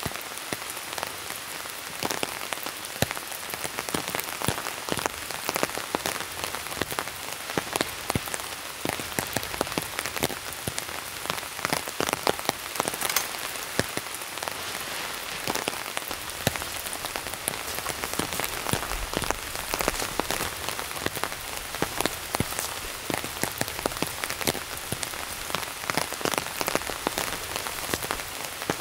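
Steady rain, a dense patter of individual drops striking surfaces.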